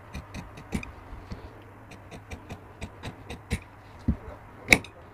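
Scissors snipping through fabric and a paper pattern while a kameez neckline is cut: a run of short, crisp blade clicks, a few a second, with one louder snap near the end.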